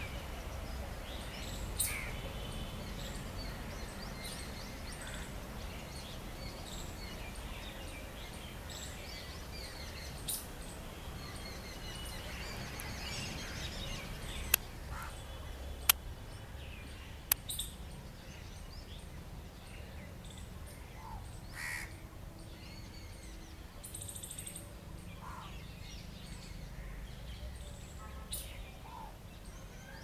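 Outdoor park ambience: scattered calls of several birds over a steady low rumble, with three sharp clicks about a second apart near the middle.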